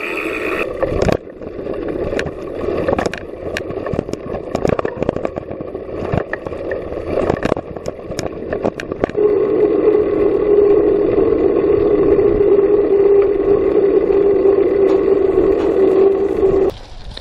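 Mountain bike rolling over a rough dirt trail, its frame and the camera mount by the front wheel rattling and knocking constantly. From about nine seconds in it gives way to a steady hum, the knobby tyres running on smooth asphalt, which cuts off suddenly near the end.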